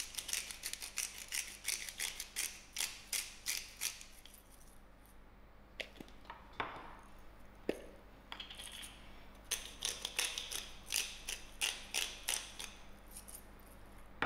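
Hand-twisted pepper and salt grinders grinding over a dish, giving quick runs of crisp clicks, about five a second. Two runs with a pause in the middle and a couple of single knocks.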